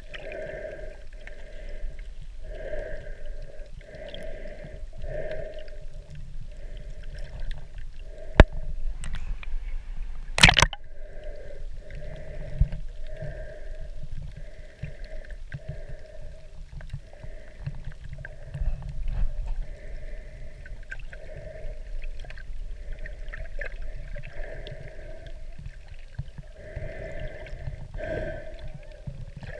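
Muffled underwater water noise picked up by a submerged camera: a low rumble with sloshing and gurgling that pulses roughly once a second. Two sharp knocks stand out, about eight and ten seconds in.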